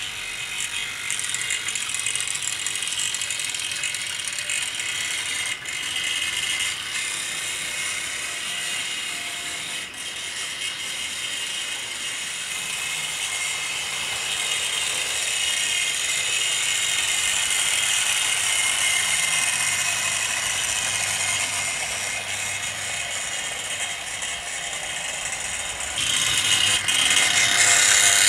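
Two 00 gauge model Lord of the Isles single-wheeler steam locomotives running at a gentle, steady speed: the steady whir of their motors and the rattle of wheels on the track. It gets louder near the end as the train comes close.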